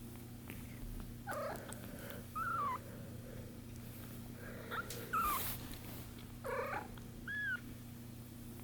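One-week-old kittens mewing: about six short, thin, high-pitched mews spread over the stretch, several of them falling in pitch.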